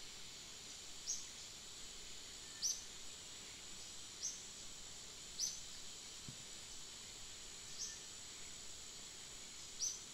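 Faint outdoor ambience: a steady high insect drone, with a short, high, falling chirp repeated every one to two seconds, and a soft low knock about six seconds in.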